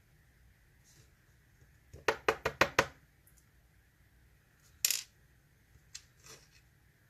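Small metal lock pins and springs from a Mul-T-Lock dimple padlock clinking onto a hard surface as a chamber is emptied. A quick rattle of about six clinks comes about two seconds in, then a single sharper clink near five seconds and a couple of faint ticks after it.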